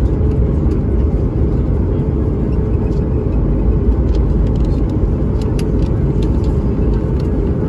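Steady low rumble inside the cabin of a Boeing 737 MAX 9 taxiing after landing, with a few faint clicks and rattles.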